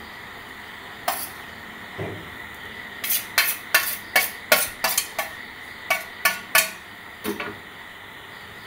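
Cutlery clinking against plates as filling is scooped from a steel plate and spread over an omelette: a single clink about a second in, then a quick run of about a dozen sharp clinks from about three to seven seconds in.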